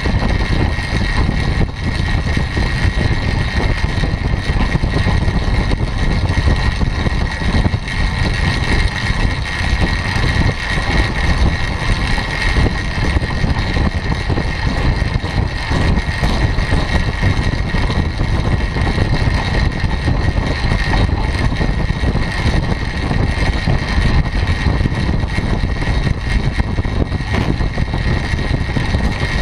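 Wind buffeting the microphone of a camera on a track bike riding at about 30 mph, mixed with the rolling noise of the tyres on the wooden velodrome boards. A steady high whine runs under the rumble.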